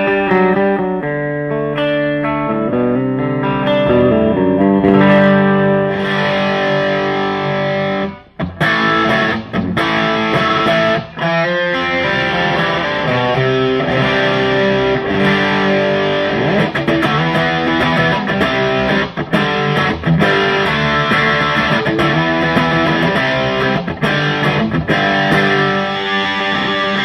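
Electric guitar played through the Bad Cat Siamese Drive overdrive pedal into a Bad Cat tube combo amp, at the pedal's low gain setting: a light overdriven crunch. The sound turns denser and brighter about six seconds in, with a brief break just after eight seconds.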